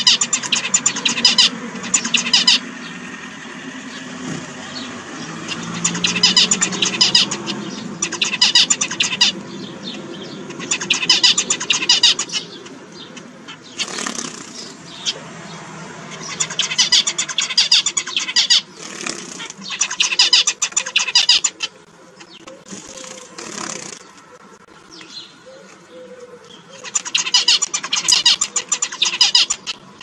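Zebra finches singing: repeated bursts of rapid, buzzy high notes, each about two seconds long, coming several times with gaps between. A low background hum runs under the first few bursts.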